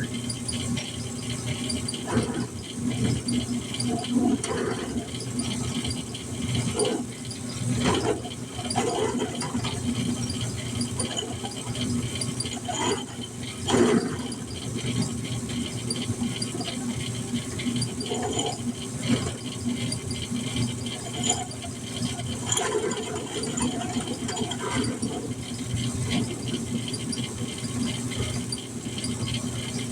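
Metal parts rattling and knocking irregularly as they are handled and fitted on a mini bike, with a loud knock about halfway through, over a steady low hum.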